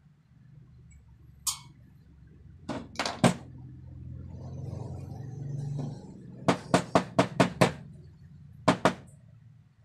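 Sharp taps and knocks on a tabletop as a small tube, a thin rod and pliers are worked by hand: a few single knocks, a quick run of about six taps a little past the middle, then two more near the end, with rustling handling noise between.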